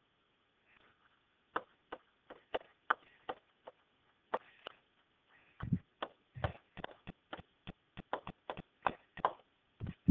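Pen strokes tapping and knocking on a SMART Board interactive whiteboard during handwriting: irregular clicks, sparse at first and coming faster after about five seconds, with a few heavier, deeper knocks among them.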